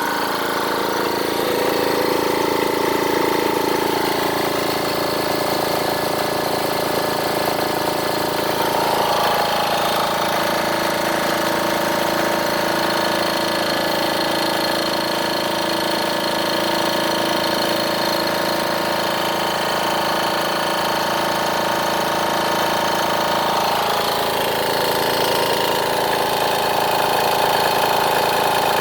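Twin-cylinder, water-cooled 4500 psi high-pressure PCP air compressor running steadily under load while it pumps up, a continuous mechanical hum whose pitch shifts slightly about nine seconds in and again a few seconds before the end.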